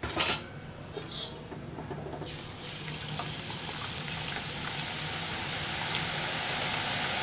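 Drops of gram-flour boondi batter falling through a perforated ladle into hot oil and deep-frying with a steady sizzle that starts about two seconds in and slowly grows louder. Two short knocks come just before it.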